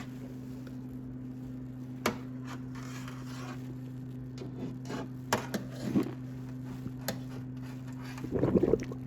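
Scattered small knocks and squishes of a wet canvas handbag being handled in water in a kitchen sink, with a louder burst of sloshing near the end, over a steady low hum.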